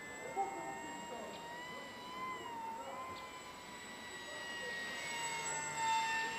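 Radio-controlled Eurofighter model jet's motor whining in flight, its pitch wavering and dipping with the throttle. It grows louder as the model passes close near the end, and the pitch starts to climb right at the end as the throttle opens.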